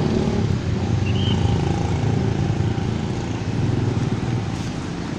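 Road traffic on a busy street below: a steady rumble of passing vehicle engines, easing off slightly near the end.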